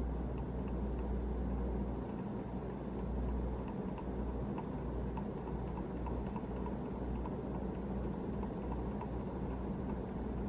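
Moss HF-200 Heirloom ceiling fan's cast iron motor running on high, a steady hum with the rush of the blades moving air. A faint tick repeats about three times a second, which the owner puts down to a loose blade screw knocking.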